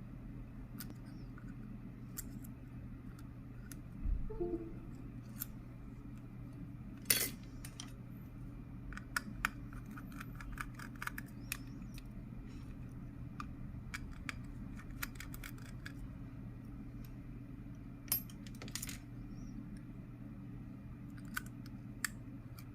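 Small clicks and taps of precision tools and parts while an iPhone 11 is being taken apart. There is a sharper click about seven seconds in and another around eighteen seconds, over a steady low hum.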